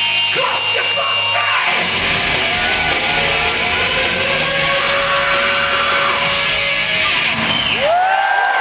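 Live hard-rock band heard from the crowd: a loud distorted electric guitar plays sliding, bending notes over the drums, with the notes swooping up and down near the end.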